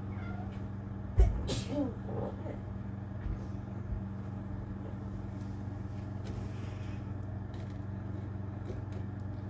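A steady low hum, with a thump and a brief faint voice about a second in.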